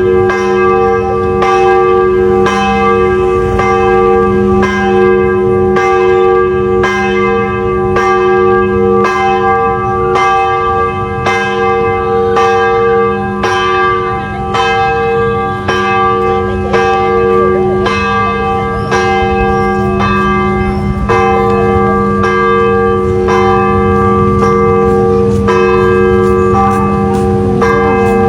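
Cathedral church bells pealing: several bells struck one after another in a steady run, a little more than one strike a second, their tones ringing on and overlapping.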